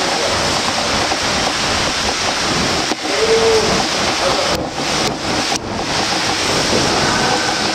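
Steady splashing and churning of water from a swimmer doing front crawl in an indoor pool, with a brief faint voice about three seconds in.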